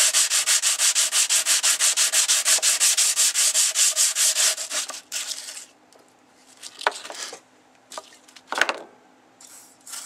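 An emery-cloth sanding block wetted with WD-40 scrubbed rapidly back and forth along a rusty steel saw blade to take the rust off, about seven strokes a second. The scrubbing stops about five seconds in, and a few light knocks follow.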